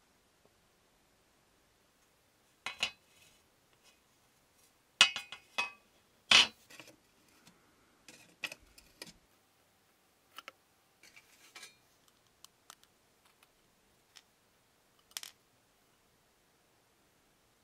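Scattered metallic clicks and clinks of pliers, small brass screws and nuts, and metal radiator parts being handled during disassembly. The loudest cluster of knocks comes about a third of the way in, followed by lighter ticks and taps.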